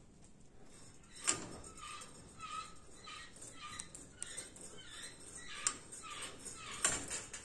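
Short squeaks and clicks from the steel linkages and pivots of a homemade centrifugal weight machine as it moves, with three sharper metallic knocks, about a second in, past halfway and near the end.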